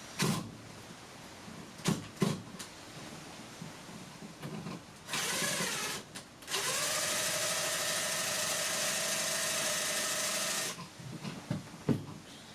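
Power drill running: a short spin-up rising in pitch about five seconds in, a brief stop, then a steady run of about four seconds. A few knocks come earlier.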